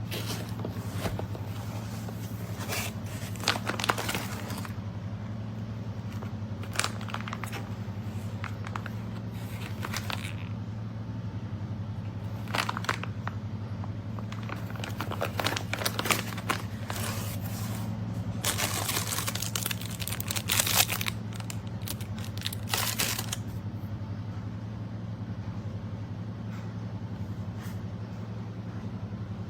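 Packaging being handled and rustled, with irregular crinkling and scraping strokes over a steady low hum.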